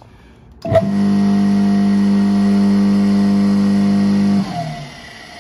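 Single-phase capacitor-run induction motor switched on at 220 V, humming strongly with a steady electrical buzz. It is cut off about three and a half seconds later, and its tone falls away as it runs down.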